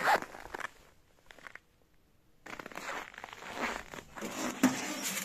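Footsteps crunching in snow, stopping for about a second and a half in the middle before starting again.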